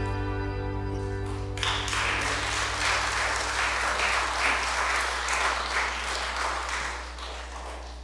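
The last held chord of a sung piece dies away, then congregation applause starts about a second and a half in and lasts about six seconds, tailing off near the end.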